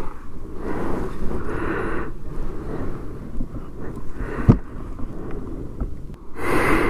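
Wind gusting unevenly on the microphone with no engine note, and a single sharp knock about four and a half seconds in.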